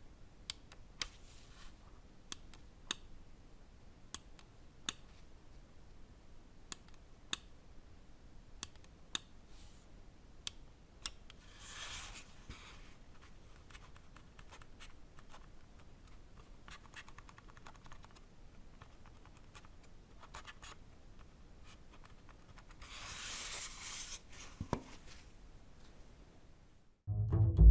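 Pulsar Xlite V3 (Size 3) gaming mouse being tested: single sharp button clicks about once a second, then its notched scroll wheel rolled in short runs of fast ticking. Music starts just before the end.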